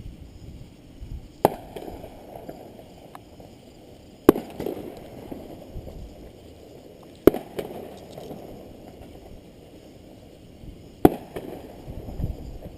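Fireworks shells bursting overhead: four sharp bangs a few seconds apart, each trailing off in a rumble.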